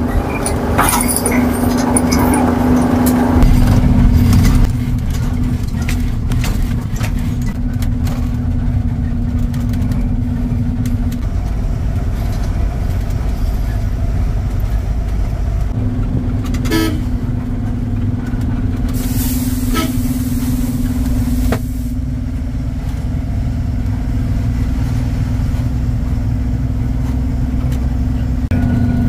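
A goods truck's diesel engine running as it drives, heard from inside the cab: a steady drone with road rumble, the drone dropping away for a few seconds about a third of the way in. A hiss of about two seconds comes about two-thirds through.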